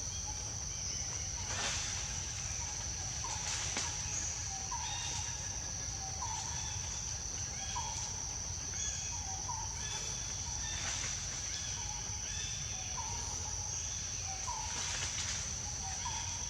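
Outdoor ambience: a steady high-pitched insect drone, with short repeated chirps about once a second and a few faint knocks or rustles.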